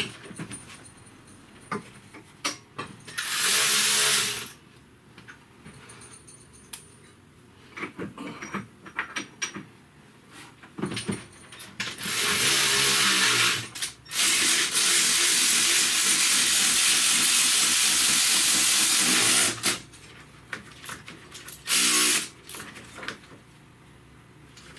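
Cordless power ratchet spinning a 17 mm bolt through a swivel in four runs, the longest about five seconds, drawing the engine and transmission assembly up onto its dowel pin as the bolt tightens. Small clicks and knocks of tools between the runs.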